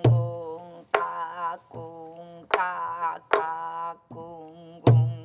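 A sori-buk (pansori barrel drum) is played in the jungmori rhythm. There are about five strokes: deep palm thumps on the drumhead and sharp clacks of the stick on the wooden shell. A woman's voice sings held notes along with the drumming.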